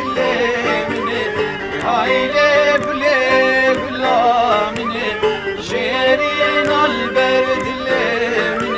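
Live Kurdish folk song: long-necked saz lutes strummed together with a reed or flute-type wind instrument, and a singer's voice carrying the wavering melody.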